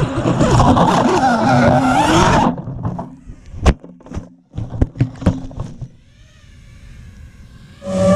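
FPV quadcopter's brushless motors whining, the pitch rising and falling as it flies, then cutting out suddenly about two and a half seconds in as it crashes into foliage. A series of sharp clicks and knocks follows as the quad hits branches. Near the end a quad's motors start whining loudly again.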